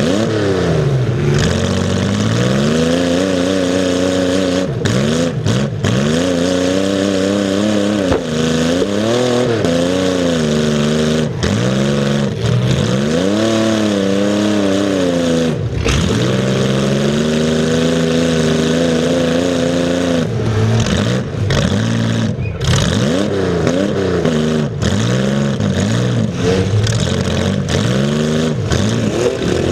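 Demolition derby car's engine heard on board, revving up and down over and over as the car manoeuvres, with a few sharp knocks along the way.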